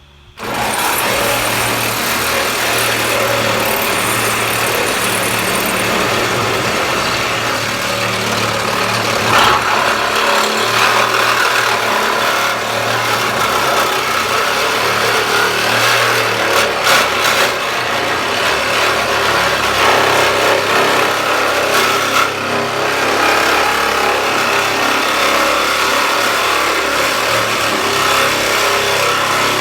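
A power tool starts abruptly and runs loudly and steadily, cutting through the sheet-metal bed of a Ford Ranger pickup. There is a dense hiss of metal cutting over a steady motor hum.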